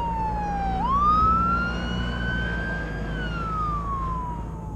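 Emergency vehicle siren wailing: one slow falling tone that sweeps sharply back up about a second in, holds high for about two seconds, then slowly falls again.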